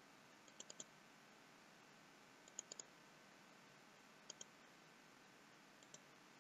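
Faint computer mouse clicks in four quick clusters of two or three, over a low steady hiss.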